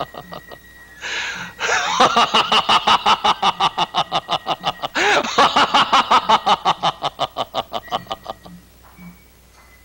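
A man laughing hard in fast, even 'ha-ha-ha' bursts. He draws a sharp breath about a second in and again about five seconds in, and the laughter trails off near the end.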